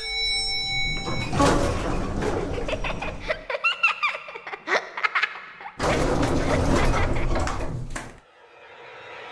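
A bell-like chime rings briefly, then an elevator's sliding doors rumble open. A couple of seconds later a second loud rushing noise lasts about two seconds and cuts off suddenly.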